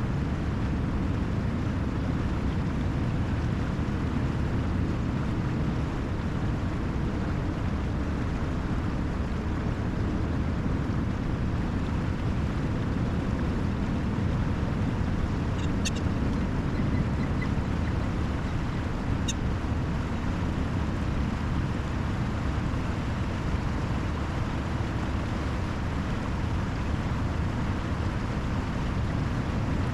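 Lake drain and its outflow channel running full with snowmelt: a steady, low rushing of water.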